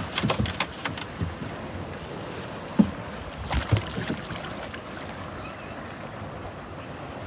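Steady wash of sea and wind around a small fishing boat, with scattered knocks and clicks; the sharpest knock comes nearly three seconds in.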